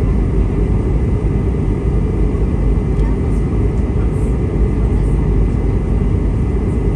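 Airbus A320 cabin noise in flight: a steady, dense low rumble of the jet engines and airflow, with a faint steady high tone above it.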